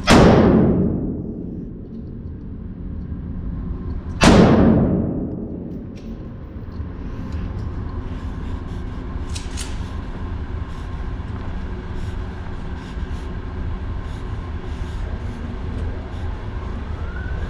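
Two 9mm pistol shots about four seconds apart, each a sharp crack with a ringing tail that dies away over a second or two. A steady low background with faint small clicks follows.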